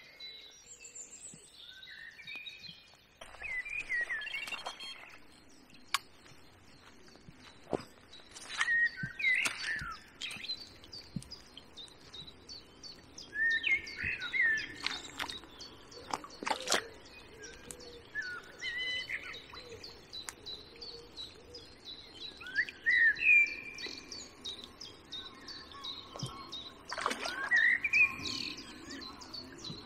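Wild songbirds singing in short phrases every few seconds, with a fast run of high, repeated chirping notes through the second half. A few sharp clicks are heard, the loudest about two-thirds of the way through.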